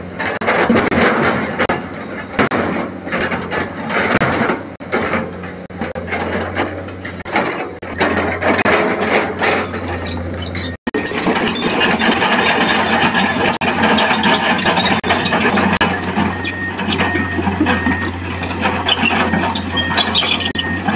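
Komatsu PC220 hydraulic excavator working, its diesel engine running steadily under metallic squealing and clanking from its steel tracks and moving parts, with a brief cut-out about eleven seconds in.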